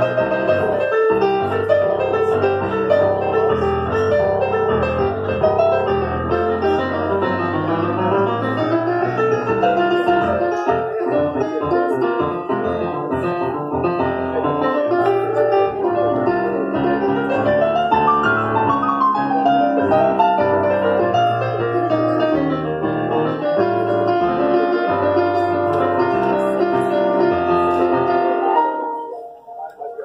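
Korg stage keyboard playing a piano sound: busy melodic runs over low bass notes. The playing stops shortly before the end.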